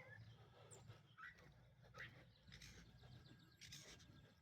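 Very faint outdoor ambience with a few short, scattered bird chirps.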